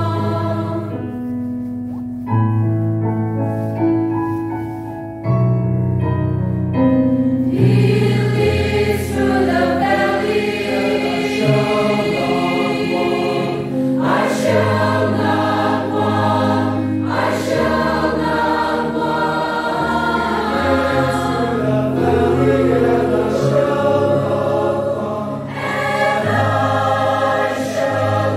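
Mixed choir of men and women singing a gospel hymn in harmony, soft at first and swelling to full voice about seven seconds in.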